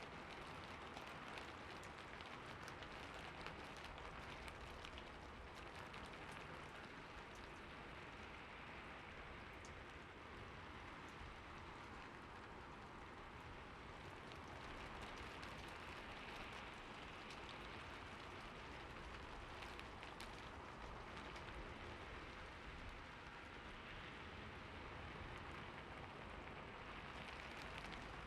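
Steady rain falling, with a continuous patter of many small drops hitting a surface.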